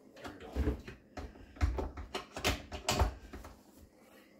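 A run of irregular knocks and clunks, the loudest a little over halfway through, as a garbage disposal and its drain fittings are handled inside a sink base cabinet.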